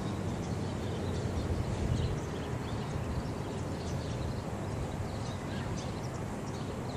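Steady low outdoor rumble with faint, scattered high ticks or chirps over it.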